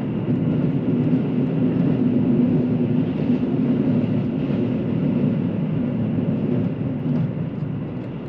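Inside a KiHa 85 series diesel express railcar under way: a steady low drone from the diesel engines, with wheel and rail rolling noise. It grows a little louder just after the start and eases slightly near the end.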